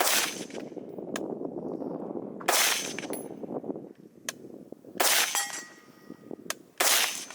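Four 5.56 mm rifle shots from a VHS-2 (Springfield Hellion) bullpup, spaced about two seconds apart, each with a ringing tail. Fainter sharp cracks come between them.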